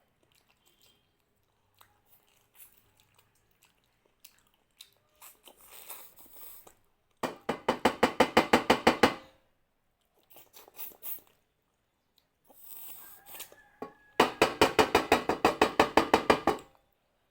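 Close-miked eating sounds of mutton curry and rice: two bursts of fast, regular wet mouth smacking, each about two seconds long, the first about seven seconds in and the second near the end, with quieter chewing and clicks between.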